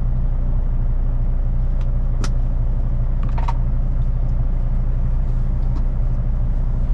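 Kenworth T880's Cummins diesel engine running with a steady low drone, heard inside the truck cab. A couple of brief sharp ticks come about two and three and a half seconds in.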